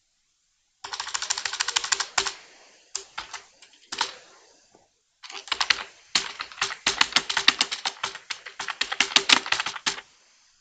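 Typing on a computer keyboard: a quick run of keystrokes about a second in, a few scattered keys around three to four seconds, then a longer fast run from about five seconds until near the end.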